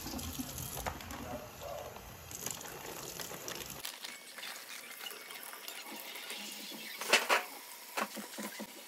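Kitchen faucet running into a stainless steel sink as thawed fish fillets are rinsed, with plastic bags being handled under the stream. A few sharp handling noises stand out about seven and eight seconds in.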